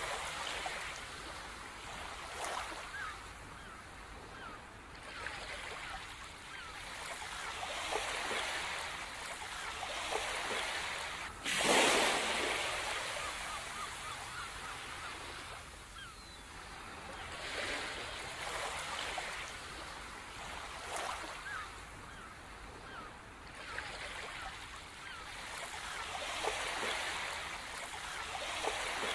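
Sea waves washing onto a shore, each surge swelling and fading every few seconds, with one sudden, louder wave breaking about eleven seconds in.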